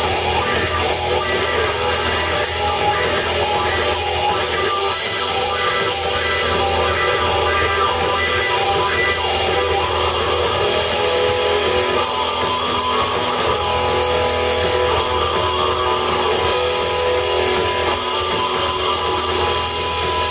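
A live rock band playing, led by electric guitars over drums, steady and loud throughout.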